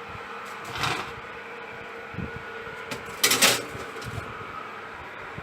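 A fan-forced oven running with a steady hum while a metal baking tray is put in, with a short clatter about a second in and a louder clatter of tray and oven door about three seconds in.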